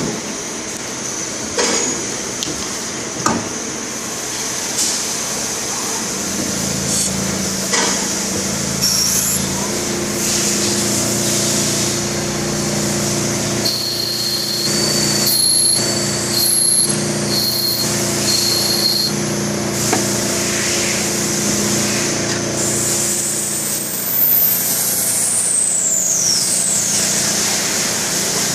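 Hanwha XD26H Swiss-type CNC sliding-headstock lathe running through a machining cycle. A steady machine hum carries scattered clicks and knocks, with high whines that switch on and off in the middle. Near the end a high whine falls steeply in pitch.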